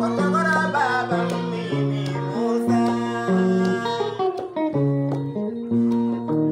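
A man singing to his own picked electric guitar, the guitar playing a repeating pattern of notes; the singing drops away about four seconds in, leaving the guitar.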